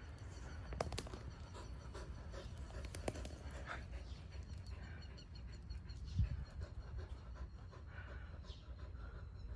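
Akita dogs panting steadily, with a few light clicks and one soft thump about six seconds in.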